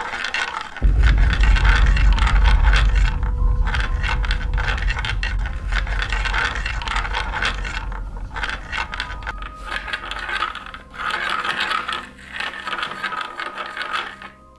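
Loud crackling, scraping noise over a deep rumble that sets in suddenly about a second in and fades away over the next several seconds, the crackling going on until near the end.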